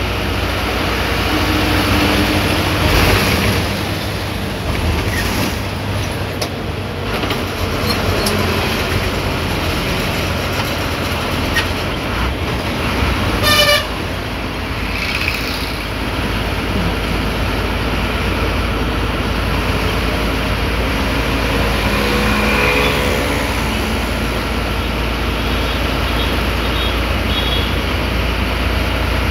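Ashok Leyland bus engine running steadily at road speed, heard from inside the cabin, with a low drone and road noise. Horns sound over it: a short loud honk about halfway through, and a longer horn tone a little later.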